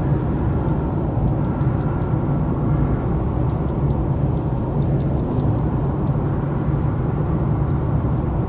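Steady road and engine noise of a car driving along a motorway, heard from inside the cabin.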